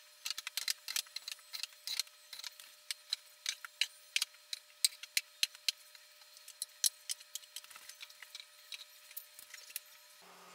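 Glass bottles and drinking glasses being set down on wooden shelves: a quick, irregular run of sharp clinks and knocks.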